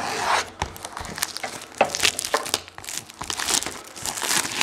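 Clear plastic shrink wrap being torn and peeled off a cardboard box, crinkling in a run of irregular crackles.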